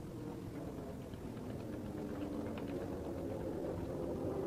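A boat's motor running, a steady hum that slowly grows louder.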